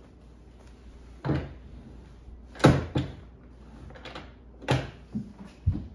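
Schroth racing harness hardware clicking and clunking as the belts are buckled and adjusted: a series of irregular knocks and clicks, the loudest a little before the middle.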